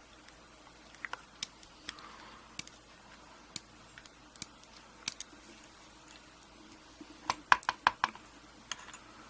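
Light metal clicks and taps as pins and small tools are handled in a pin-tumbler padlock being taken apart. The clicks are scattered one by one, with a quick run of several about seven and a half seconds in.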